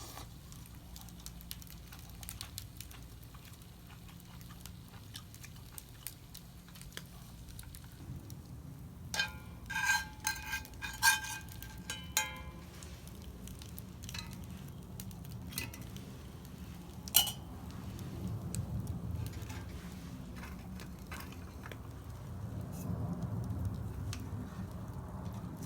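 Tableware clinking: a quick cluster of ringing metal-on-dish clinks, then a single sharp click a few seconds later, over a low steady background.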